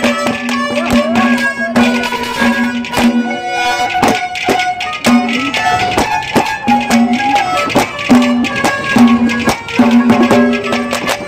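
Instrumental interlude of Haryanvi ragni folk music: drums beating a quick, steady rhythm under a melody instrument playing short held notes.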